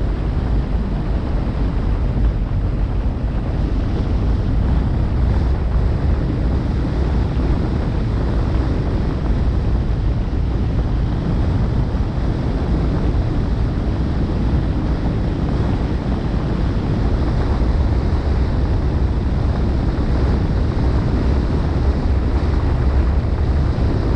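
Steady low rumble with wind buffeting the microphone: the road and wind noise of a moving vehicle.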